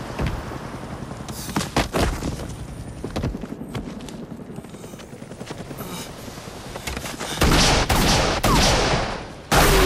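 Automatic gunfire in a film soundtrack: scattered shots over a steady low rumble, then two long, loud bursts of rapid fire in the last two and a half seconds.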